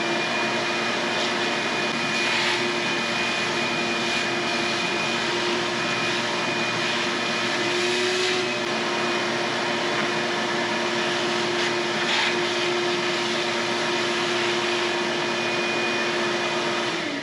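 Shop-Vac wet/dry vacuum running steadily with a high whine, its hose nozzle worked around inside a tire.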